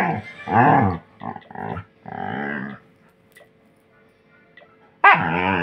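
Pet dog grumbling and whining in a string of drawn-out, wavering growl-moans, reacting to a stick held over it. The calls come in several bursts over the first three seconds, then one more about five seconds in.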